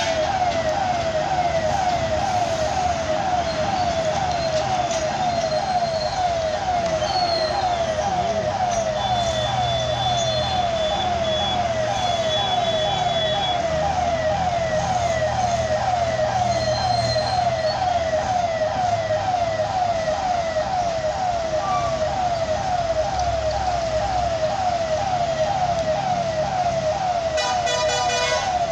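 Electronic warning siren of a railway level crossing sounding continuously, a falling tone repeated about three times a second. Heavy truck engines rumble underneath as the trucks cross.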